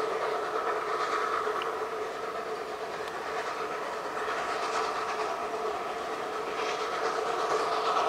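Narrow-gauge forest-railway steam locomotive working a train in the distance: a steady rumbling running sound, with hissing swells of exhaust steam that come and go.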